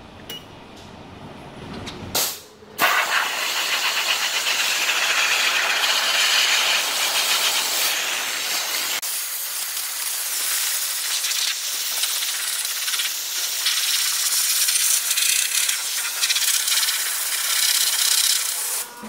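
MONAIR hybrid steam cleaner's lance spraying a steam and hot-water mix onto the underside of a car bonnet: a brief spurt about two seconds in, then a loud, steady hiss.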